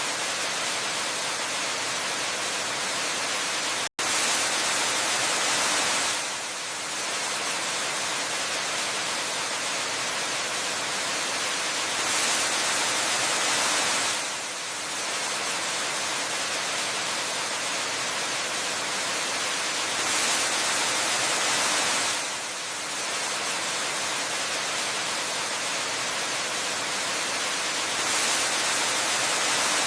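Waterfall's rushing water as a steady, hiss-like noise, swelling a little louder for about two seconds roughly every eight seconds. It cuts out for an instant about four seconds in.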